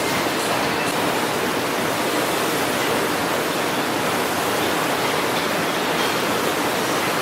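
Steady, loud rushing noise with no rhythm or tone, unchanging throughout.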